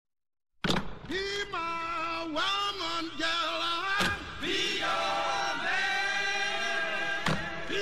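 Background vocal music: singing voices holding long notes that step up and down in pitch. It starts suddenly after a short silence about half a second in.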